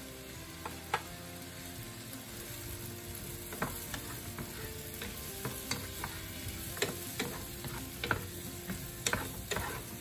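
Sliced mushrooms sizzling in butter in a nonstick frying pan, with a wooden spoon knocking and scraping against the pan as they are stirred. The knocks come more often from a few seconds in.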